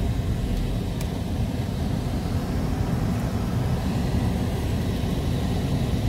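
Steady low rumble of a car driving through town, road and engine noise heard from inside the cabin.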